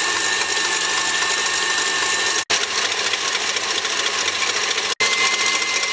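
Stand mixer's motor running steadily with a thin whine, its wire whip churning through cream as it whips it for a cake filling. The sound cuts out for an instant twice.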